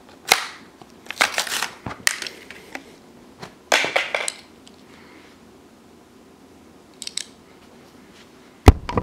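Plastic blister pack of a Hot Wheels toy car being torn open and crinkled by hand, in several short crackling bursts, with the die-cast car pulled free. A sharp thump near the end is the loudest sound.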